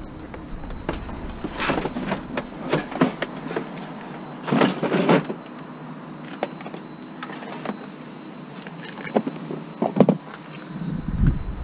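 Irregular knocks, clunks and rattles of objects being handled and moved about, with a denser clatter about five seconds in and two sharper knocks near the end.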